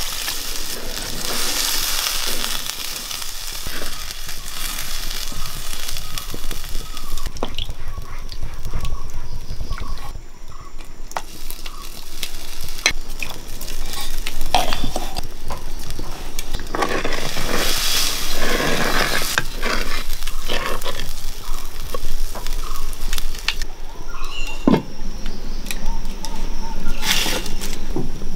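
Food sizzling in hot oil in a cooking pan while a spoon stirs it, with repeated clicks and knocks of the spoon against the pan.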